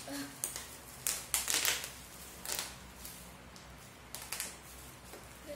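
Packaging being handled and opened: irregular rustling and crinkling, in short bursts with a longer spell between about one and two seconds in.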